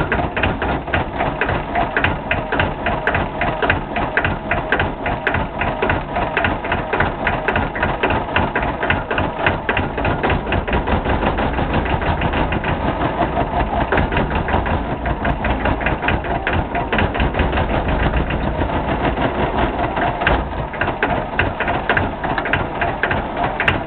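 McCormick Farmall tractor engine, built 1950–1960, running steadily with an even, rapid knocking beat from its firing strokes.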